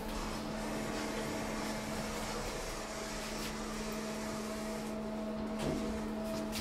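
KONE MonoSpace machine-room-less traction elevator car running, heard from inside the car: a steady hum with a constant higher whine over an even hiss of machinery and air.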